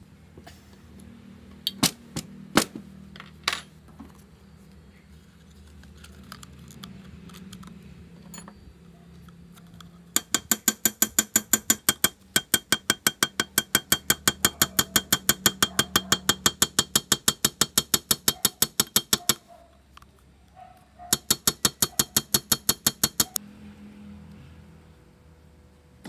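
Rapid, even metallic clicking of a ratchet wrench being worked, about five clicks a second, in one long run of about nine seconds and a shorter run of about two seconds. A few sharp metal knocks come before it.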